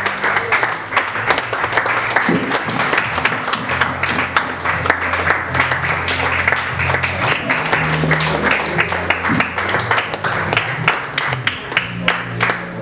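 Audience applauding, a dense patter of clapping, with music playing underneath on a low bass line.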